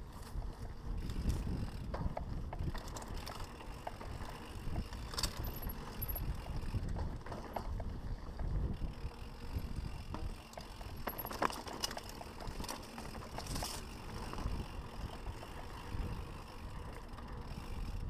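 Mountain bike riding fast down a dirt singletrack: wind buffeting the microphone with a fluctuating low rumble, tyres rolling over dirt, and scattered clicks and rattles from the bike over the rough trail.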